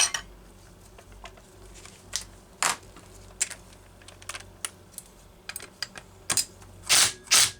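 Scattered light metallic clicks and clinks of hand tools and chainsaw parts being handled during a teardown, a few sharper knocks near the end.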